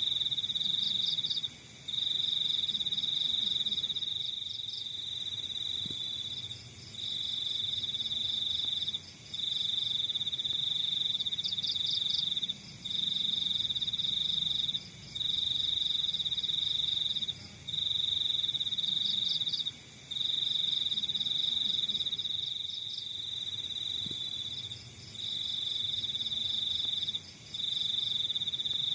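Crickets trilling: one loud, steady, high-pitched trill in stretches of two to four seconds broken by brief pauses, with a fainter, pulsing chirp from other insects just above it.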